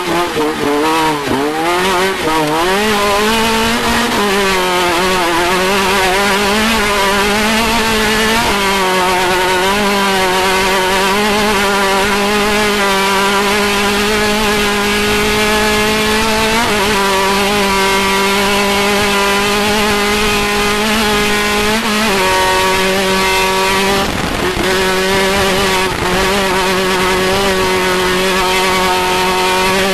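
Off-road race vehicle's engine running hard. It rises and falls in pitch over the first few seconds, then holds a high, steady pitch with a few short steps up and down, about four, eight, seventeen, twenty-two and twenty-four seconds in.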